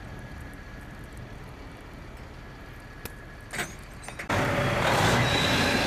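Steady low rumble of vehicles on a snowy highway. There is a click about three seconds in and a short burst of noise just after it. A little after four seconds the sound jumps suddenly to much louder, steady noise with a thin high whine.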